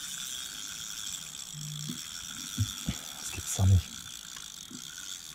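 Carp fishing reel being cranked, a ratcheting mechanical whir, while a freshly hooked carp is played in. A few short low sounds come from the angler, the loudest about three and a half seconds in.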